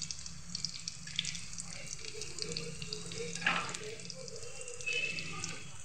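Onion samosas deep-frying in a pan of hot oil: a steady bubbling sizzle with scattered crackles, early in the fry before they are turned.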